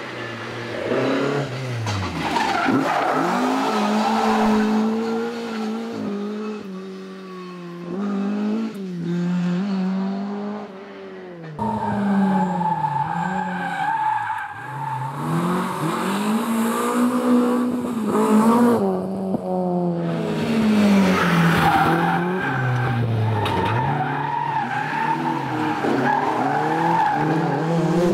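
Rally car engines revving hard and falling away between gear changes and corners as the cars pass, over several short clips that cut abruptly from one to the next.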